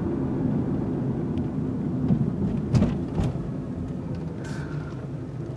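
Car engine and road noise heard from inside the cabin while driving, a steady low rumble that grows quieter in the second half. Two sharp clicks sound a little before the middle.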